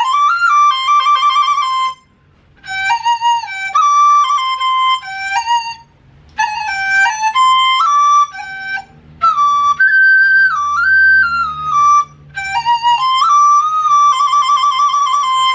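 Bamboo dizi in the higher C key (đô cao) playing a short melody in five phrases, with brief breath pauses between them. It opens with a quick upward slide into the first note.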